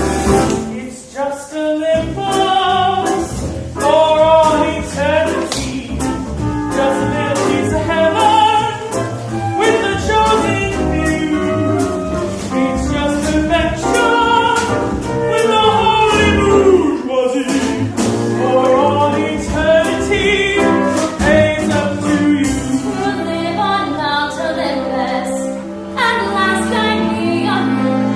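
A musical-theatre song: singing over a small pit band with a steady drum beat.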